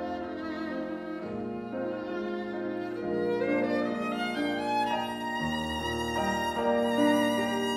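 Violin playing a bowed melody with vibrato over Steinway grand piano accompaniment. The piano holds low bass notes that change every couple of seconds.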